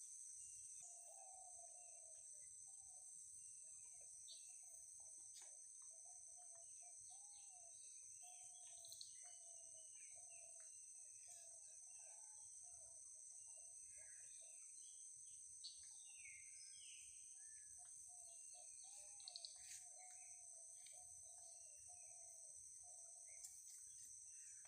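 Faint outdoor ambience: a steady high-pitched insect drone, scattered bird chirps, and a low warbling bird call repeating through most of it.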